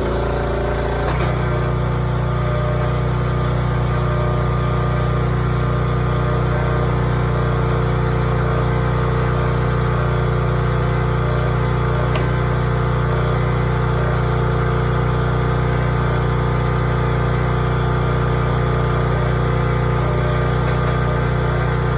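Log splitter's engine running steadily at constant speed, with a brief shift in its note in the first second.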